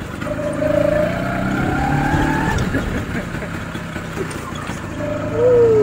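Scooter engine running under way, its whine rising steadily in pitch as it picks up speed over the first two seconds or so, then falling in pitch near the end as it slows.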